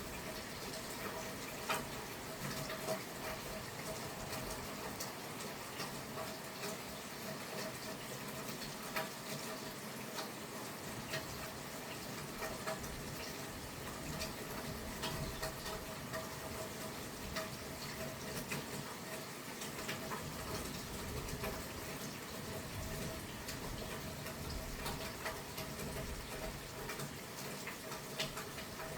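Steady rain falling, with many small drops ticking on a hard surface, and a faint steady hum beneath it. No thunder is heard.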